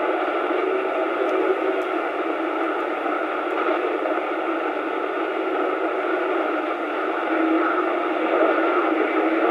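CB radio receiver hiss and static from the speaker on an open channel, steady with faint weak tones under it: band conditions with no station getting through.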